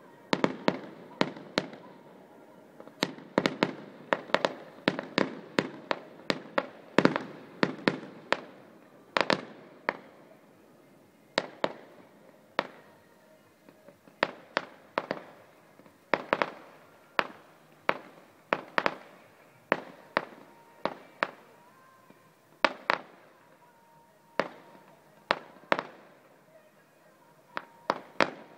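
Fireworks display: a long series of sharp bangs, coming thick and fast for about the first ten seconds, then more spread out with pauses of a second or two between them.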